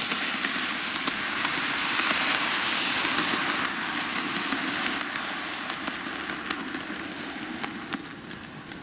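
N-gauge model of a Keihan 1000 series electric train running close past on track, a steady whirr and rattle of motor and wheels that fades as it moves away. A few sharp clicks come near the end.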